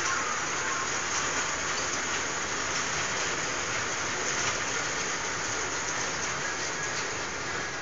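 Carriages of a small electric elephant train ride rolling past on a steel rail track: a steady hissing rattle of the wheels running on the rails.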